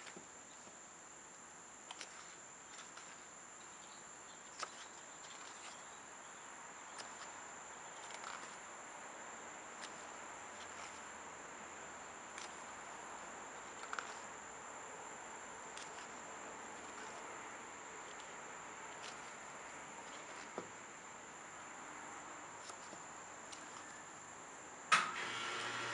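Faint small clicks and taps of CD packaging being handled, over a steady hiss with a thin high whine. Near the end a sharp click, then a louder steady hum with a low tone starts.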